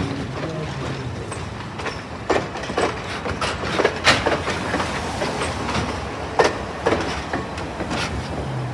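Railroad passenger coaches rolling past, a steady rumble of steel wheels on rail broken by irregular sharp clacks.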